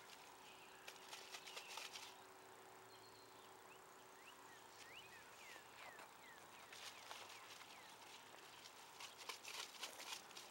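Faint crackling and clicking in three short bouts, typical of a plastic water bottle being shaken, with faint high chirps between the bouts.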